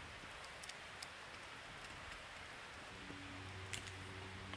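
Wood campfire burning with a steady soft hiss and scattered sharp crackles, the loudest pop coming near the end.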